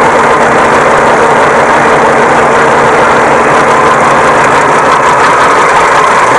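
New Holland 3630 tractor's diesel engine running steadily under heavy load, hauling a loaded grain trailer hard enough that the tractor's front wheels lift off the ground.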